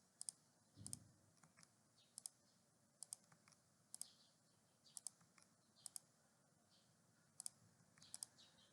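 Faint, widely spaced clicks of a computer keyboard, mostly in quick pairs, about one a second.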